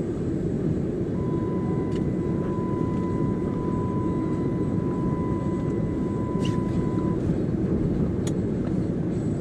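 Road noise inside a moving car: a steady low rumble of engine and tyres. A thin steady high tone sounds from about a second in and stops about six seconds later.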